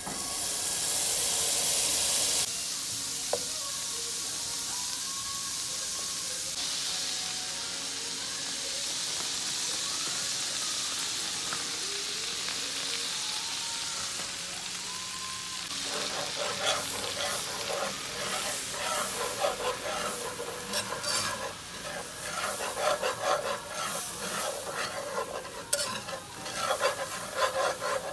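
A stick of butter sizzling as it melts in a hot skillet, loudest in the first couple of seconds. A little past halfway a wire whisk starts stirring in the pan, a quick run of scraping and clicking over the sizzle as flour is worked into the butter for a gravy roux.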